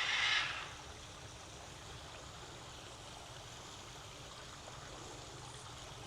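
A short rustling burst at the start, then faint, steady rushing background noise.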